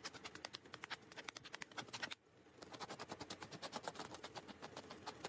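Fast, faint, regular clicking, about seven or eight clicks a second, with a short break about two seconds in.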